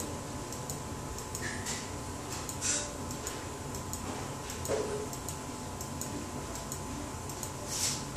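A run of light, fairly regular ticking clicks over a steady faint hum, with a few short swishing rustles, the loudest near the end.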